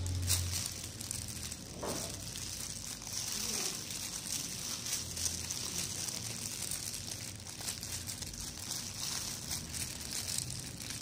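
Thin disposable plastic food-handling gloves crinkling and rustling as the hands roll strips of fish cake and push them onto bamboo skewers.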